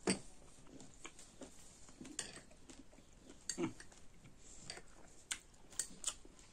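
Metal spoon clinking and scraping against a glass bowl: scattered short, sharp clicks, several seconds apart, as the spoon stirs and scoops.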